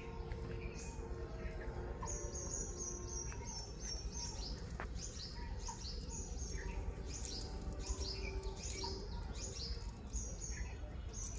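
Several small birds chirping, with many short, high calls repeating, including a quick run of very high identical notes twice early on, over a steady low background noise.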